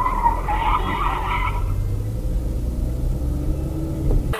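Car tyres screeching under hard braking for about a second and a half, over a steady low rumble of the car and road.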